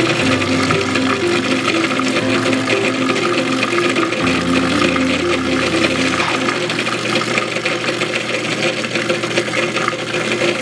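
Food processor motor running steadily, blending a thick paste, with background music over it.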